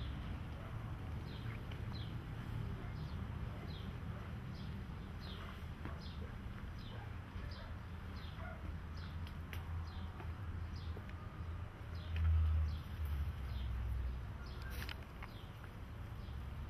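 A small bird chirping over and over: short, high, falling chirps about two a second, over a steady low rumble that swells briefly about three-quarters of the way through.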